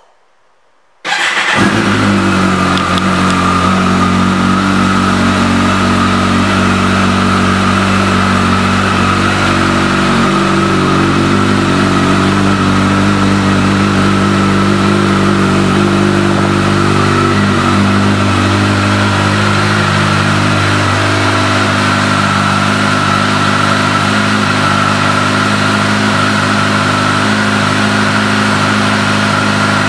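Kawasaki Ninja ZX-14R's inline-four engine, breathing through a Yoshimura aftermarket exhaust, starts about a second in and settles into a steady, loud idle.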